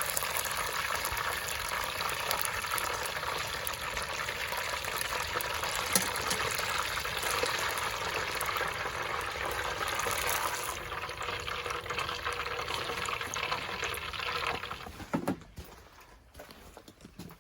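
Hot oil sizzling and crackling around deep-frying Cornish hens. The sizzle thins about eleven seconds in and dies away near the end, as the frying stops.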